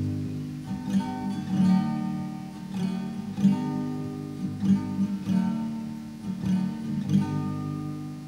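Acoustic guitar strumming and plucking chords in an instrumental passage of a worship song, with no singing.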